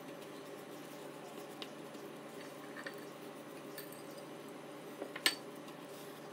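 A few light clicks and clinks of kitchenware being handled over a steady low hum; the sharpest click comes about five seconds in.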